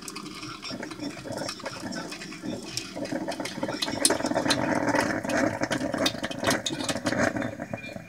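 KRUPS Aroma Control drip coffee maker brewing, with gurgling and sputtering as heated water is pushed up to the filter. Irregular pops and crackles grow louder and denser about three seconds in.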